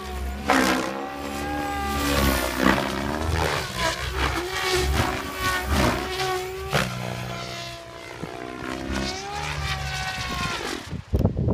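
SAB Goblin 700 electric RC helicopter flying aerobatics: the rotors and motor drone steadily, the pitch rising and falling as it manoeuvres. A choppy rush of noise comes in near the end.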